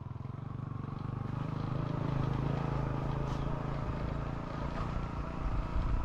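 A motor vehicle engine running with a steady low hum, growing louder over the first couple of seconds and easing off near the end.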